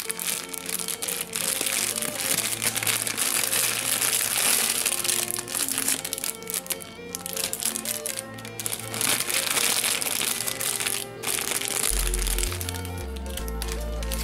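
Clear plastic bag crinkling and rustling as a plastic model airliner is worked out of it, dying down near the end. Background music plays under it.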